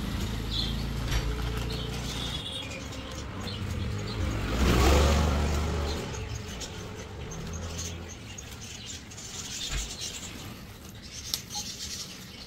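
Steady low background rumble with a few faint bird chirps, and a louder swell of noise about five seconds in.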